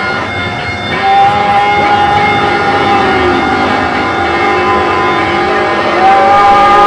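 Live noise-music performance: dense, loud noise with a held high tone that comes in about a second in and fades a few seconds later, and another held tone that comes in near the end.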